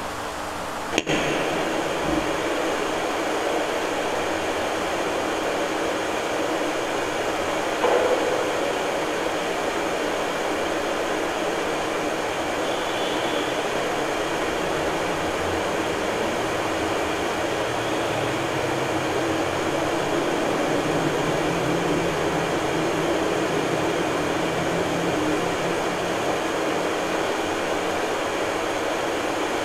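Steady hiss and hum of background noise with a few faint steady tones, like a fan running. A sharp click comes about a second in, after which the noise is louder, and there is a small knock around eight seconds.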